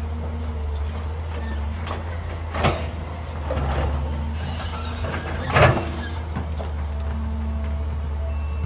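JCB tracked excavator's diesel engine running steadily under work, with two sharp knocks about three seconds apart, the second the louder.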